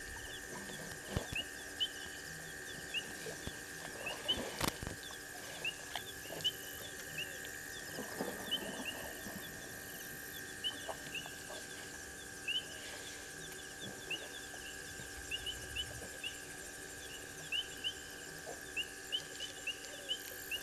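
Night chorus of small calling creatures: a steady high drone with short, rising chirps repeated several times a second. Faint scattered clicks and knocks come through, with one sharp crack about four and a half seconds in.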